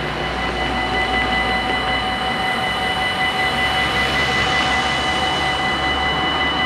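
Level-crossing electronic warning bells ringing with a steady high tone, signalling that a train is approaching, over the noise of road traffic passing close by.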